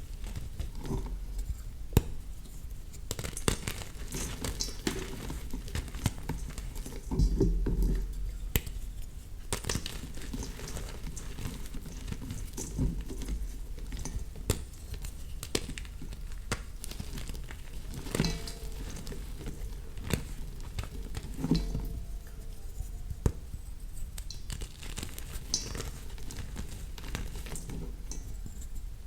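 Blocks of reformed gym chalk being crushed and crumbled: dry crunches and sharp snaps over a soft crumbling patter, with a louder crumbling stretch about seven seconds in.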